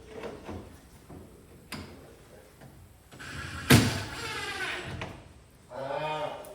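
Light knocks and clicks of woodworking, with one sharp bang about three and a half seconds in, followed near the end by a short animal call.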